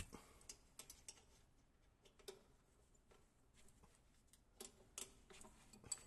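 Faint, scattered clicks and taps of small metal machine parts being handled during disassembly of a strapping-clip machine's mold, over near silence.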